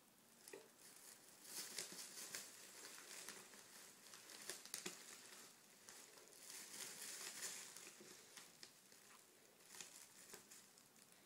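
Faint crinkling and rustling of thin plastic shopping bags in uneven bursts, with small clicks, as a Burmese cat pushes its head and paw into them after lettuce.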